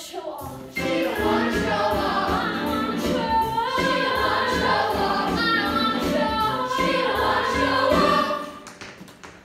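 Musical-theatre cast singing together, a lead voice with the chorus, over a show-tune accompaniment with a pulsing bass line. It starts about a second in and fades away about a second before the end.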